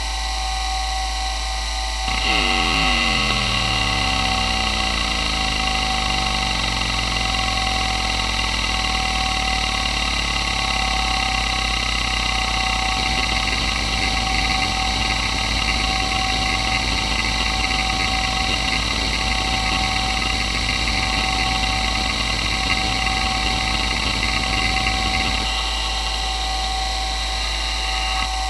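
A Toshiba MK2024FC 2.5-inch glass-platter hard drive spins with a steady whine from a spindle whose bearings are worn. From about two seconds in, the heads work busily through a benchmark's track reads and seeks: a rapid chattering, falling in pitch over the first few seconds, that stops abruptly a few seconds before the end.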